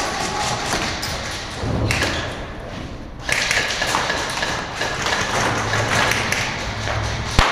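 Scattered thuds and taps over a steady rushing noise, with the camera and gear knocking about as its wearer moves during an airsoft game. The noise drops for about a second and comes back louder a little past three seconds in.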